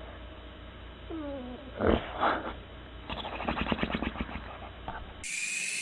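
A pet animal vocalizing: a short falling call, then two louder rough bursts, then a quick run of pulses. Over a low steady hum.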